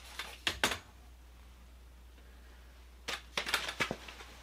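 Light clicks and small knocks of hands handling parts on the motorcycle's front end: two clicks about half a second in, then a quick cluster of clicks and taps about three seconds in, over a steady low hum.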